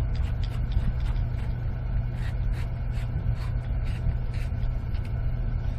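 A steady low mechanical drone, engine-like, with faint irregular clicks and ticks of a PVC adapter being threaded by hand into a cast-iron sump pump's discharge.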